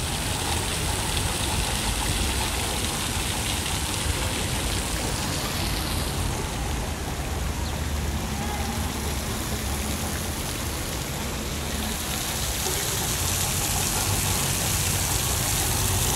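Fountain jets splashing into their basin, a steady rushing hiss, with car traffic passing on a cobbled street.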